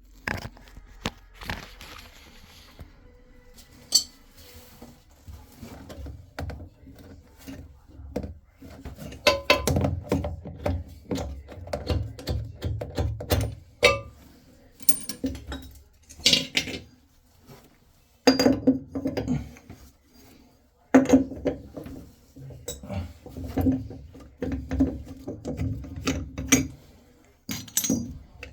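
Irregular metallic clinks and knocks, with stretches of scraping, as metal fittings and hand tools are handled on plumbing pipework.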